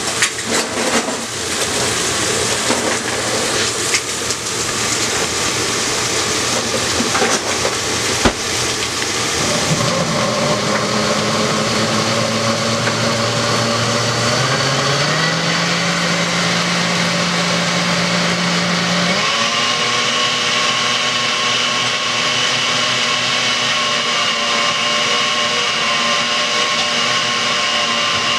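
Countertop blender running, puréeing a green salsa. It is choppy and knocking for the first several seconds, then settles into a steady motor whine that rises in pitch about halfway through and steps up higher about two-thirds of the way in.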